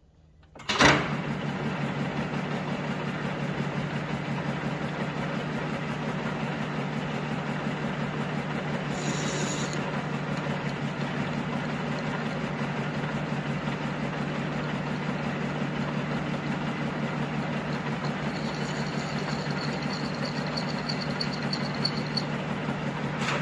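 Metal lathe starting up about a second in with a sudden clunk, then its motor and headstock gearing running steadily with the three-jaw chuck spinning. A faint high whine comes and goes near the end.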